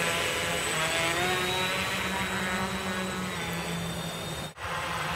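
Quadcopter's electric motors and propellers buzzing in flight, their pitch gliding up and down as the throttle is adjusted. The sound cuts out for a moment about four and a half seconds in.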